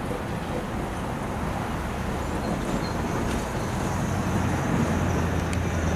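Steady rumble of motor-vehicle traffic, with a low engine hum coming in and growing louder from about halfway through.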